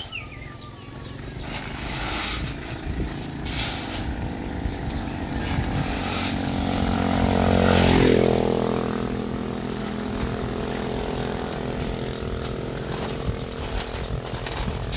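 A small engine passing by: it grows louder to a peak about eight seconds in, drops in pitch as it goes past, then fades.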